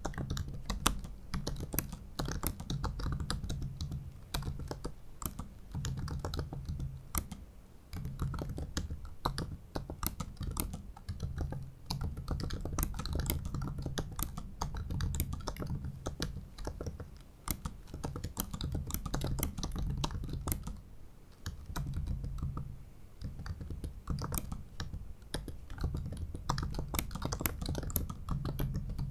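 Continuous typing on a MacBook Pro 15-inch (2017) butterfly keyboard: a dense stream of key clicks, broken by a few brief pauses.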